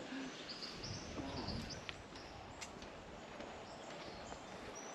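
Rainforest ambience: a steady hiss with faint, short, high bird calls scattered through it.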